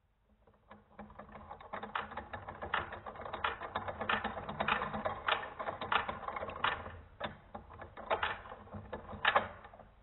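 Rotary telephone dial mechanism clicking and ratcheting as the dial is turned off normal, a dense run of irregular clicks that stops near the end.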